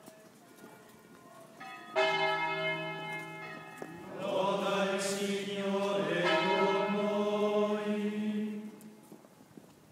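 Church bells ringing, loud from about two seconds in until near the end, with men chanting in unison.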